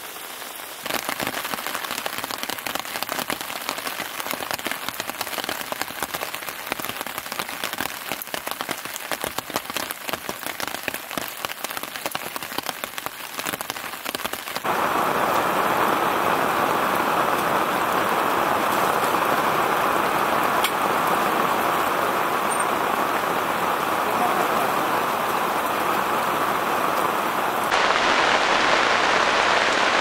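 Heavy rain falling hard, a dense patter of drops. About halfway through it changes abruptly to a louder, steadier downpour, and shifts again near the end.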